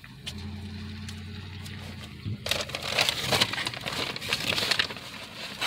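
A low steady hum, then about halfway through a louder, crackly crinkling and rustling starts suddenly close to the microphone, as a paper sandwich wrapper is handled.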